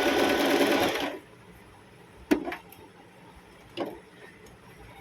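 Singer M3505 portable sewing machine running briefly on a zigzag stitch to sew on a button, then stopping about a second in. Two sharp clicks follow.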